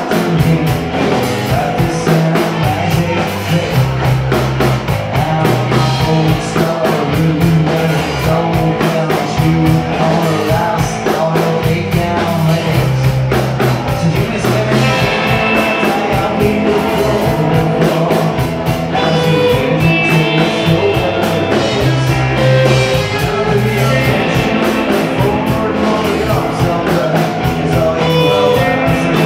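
Live rock band playing: distorted electric guitars, bass and a drum kit with cymbals, with a male singer at the microphone.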